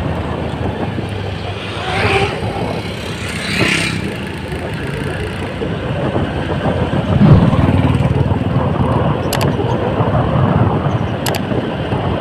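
Vehicle running along a paved road, with wind buffeting the microphone: a steady rumble that swells louder about seven seconds in. A couple of brief clicks come near the end.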